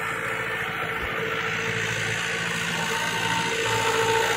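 Tractor engine running steadily as it pulls a laser land-leveller through tilled soil, with a steady whine over the engine note; the sound grows slowly louder toward the end.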